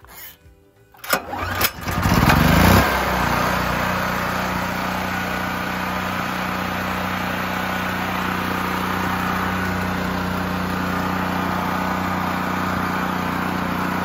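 Generac GP6500 portable generator's single-cylinder OHV engine starting about two seconds in, revving up briefly and then settling into a steady run. It starts easily and runs smoothly now that its dislodged push rod has been reseated in the rocker arm.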